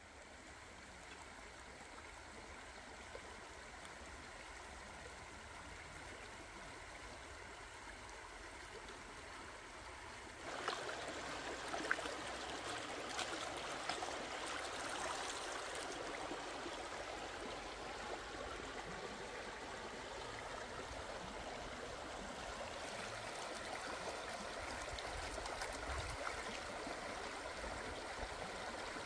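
Water running in a stream: a steady rushing that grows louder about ten seconds in, with a few small clicks just after.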